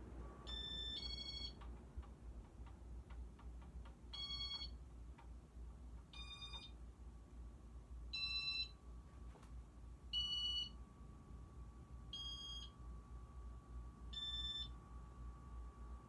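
Casablanca Victorian ceiling fan running with a low, steady motor hum, overlaid by short, high two-note electronic-sounding chirps that repeat about every two seconds.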